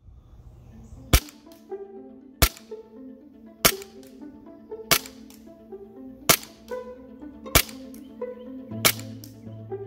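VFC Glock 18 gas blowback airsoft pistol firing single shots through a chronograph, seven sharp cracks about one every 1.3 seconds, over background music.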